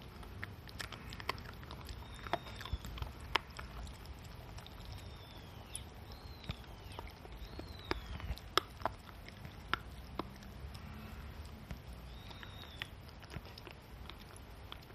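Shiba Inu gnawing a hard chew treat held in its front paws: irregular sharp clicks and crunches of its teeth, a few close together and then pauses. Short high falling chirps sound now and then in the background.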